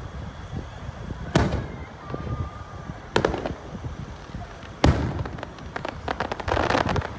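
Aerial firework shells bursting: three sharp bangs about two seconds apart, the last the loudest, followed near the end by a rapid crackling as the stars burst.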